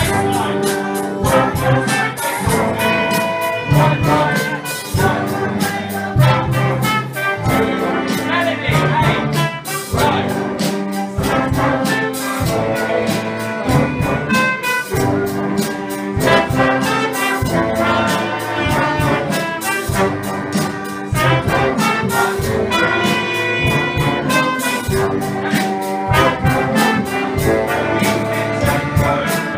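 A school ensemble of violins, trumpets, clarinets and saxophones playing a tune together, with a steady beat.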